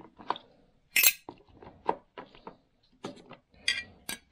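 Small metal parts of a sharpening stone holder clinking together and against a plastic tub as they are picked through in a bath of degreaser: several separate clinks, the loudest about a second in.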